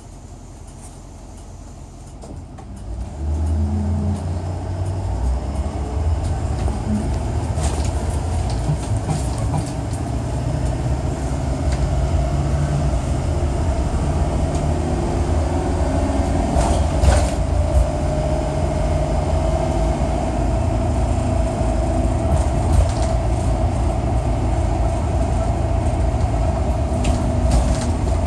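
Small bus heard from inside the cabin: a steady low engine and road rumble that grows louder about three seconds in, with a faint whine and a few scattered clicks.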